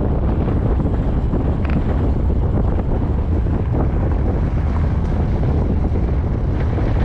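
Steady wind buffeting the microphone, a loud, gusty rumble with no clear tones.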